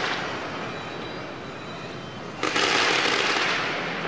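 A steady crackling hiss that jumps suddenly louder about two and a half seconds in, then slowly eases.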